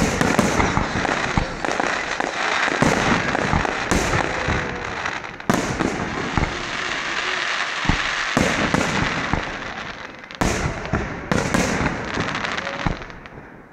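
Aerial fireworks shells bursting in quick succession: a dense run of sharp bangs over continuous crackling. It starts abruptly and thins out near the end.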